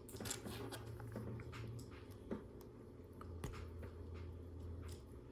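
Faint, scattered clicks and taps of Lego Technic pieces being handled and fitted together, over a low steady hum.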